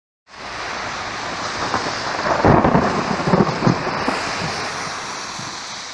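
Thunderstorm: steady rain hiss with a burst of thunder about two and a half seconds in, cracking and rumbling for about a second, then fading away.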